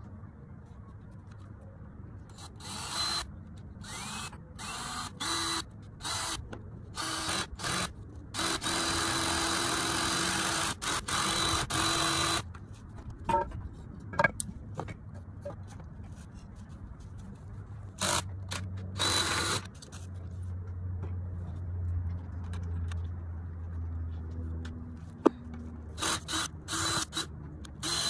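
Cordless drill run in short on-off bursts into wooden boards, its motor whining, with one longer run of about four seconds early on. A quick string of short bursts comes near the end.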